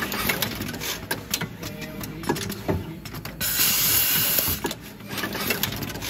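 Fully automatic wire stripping and crimping machine running, with a quick, uneven series of mechanical clicks and knocks from its strip-and-crimp station. A hiss lasting about a second starts a little past the middle.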